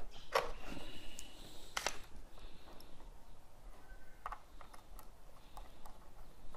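Small metal parts of a CB microphone plug and its tiny screws clicking and ticking as they are handled and fitted by hand. Two sharper clicks come in the first two seconds, then a scatter of lighter ticks.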